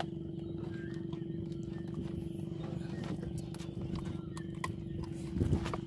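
Small boat engine running steadily with a fast, even chug.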